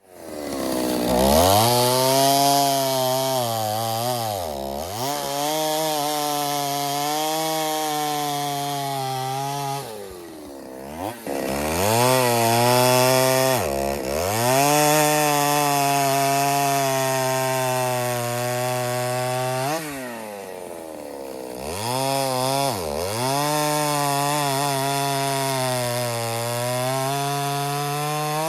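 Stihl two-stroke chainsaw running hard while bucking oak firewood rounds. It revs up at the start, then its engine pitch dips and climbs back several times as the chain goes in and out of the wood.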